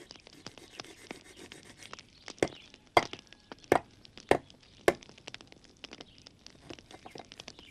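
Small twig fire crackling, with a run of about five loud, sharp cracks a little over half a second apart in the middle.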